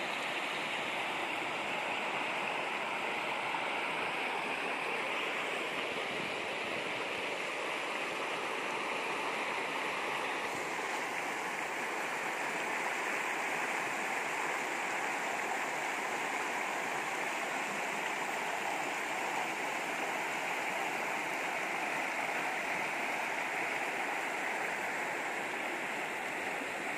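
Shallow river rushing over rocks in rapids: a steady, even rush of water.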